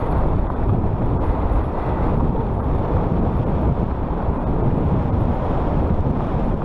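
Wind rushing and buffeting over the microphone while riding, a steady low rumble with no clear motor tone.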